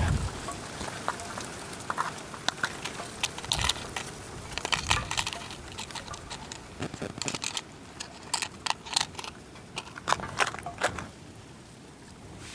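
Handling noise as a DJI Mavic Pro drone and its gear are readied for flight: a run of irregular clicks and knocks with short crackly bursts, thinning out near the end.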